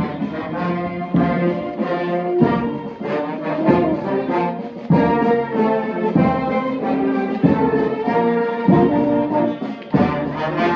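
Brass band playing a tune in sustained, changing notes over a low beat that falls about once a second.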